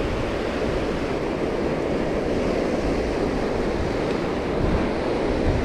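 Steady rush of fast-flowing water in a concrete aqueduct canal, with wind buffeting the microphone in uneven low rumbles.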